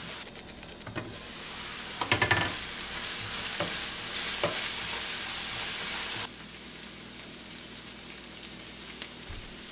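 Chopped red onions sizzling as they sauté in oil in a stainless steel pan, stirred and scraped with a wooden spatula, with a few knocks about two seconds in. The sizzle drops suddenly about six seconds in.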